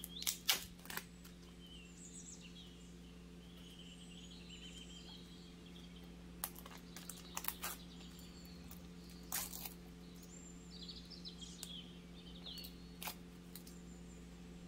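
Thin plastic film on a tray of soft tofu crackling and crinkling as it is peeled back, with a few sharp crackles in the first second and more scattered through the rest. A steady low hum runs underneath, and faint high chirps come and go.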